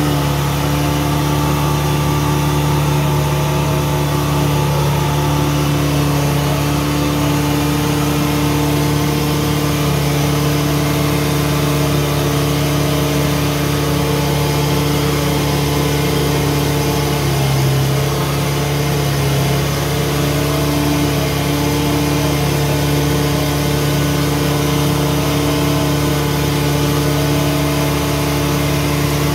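Old log skidder's diesel engine running steadily, heard from inside its open cage cab. Its pitch dips and wavers briefly about two-thirds of the way through, then settles again.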